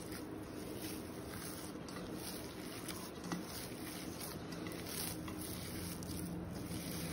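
A hand kneading a soft ground mutton-keema and lentil shami kabab mixture with chopped onions and green chillies in a steel bowl: faint, soft squishing over a steady hiss. A faint low hum comes in about three seconds in.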